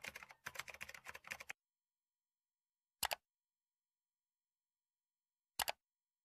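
Intro-animation sound effects: a quick run of keyboard-typing clicks for about a second and a half, then silence broken by a short double mouse-click about three seconds in and another near the end, as the on-screen Like and Subscribe buttons are pressed.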